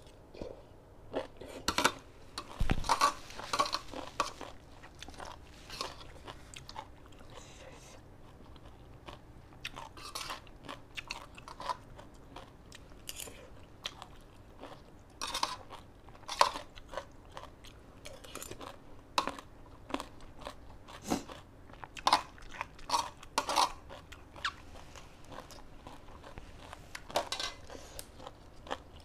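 A person chewing and crunching mouthfuls of spicy salad and raw vegetables close to the microphone, with irregular crunches, some louder than others, scattered throughout.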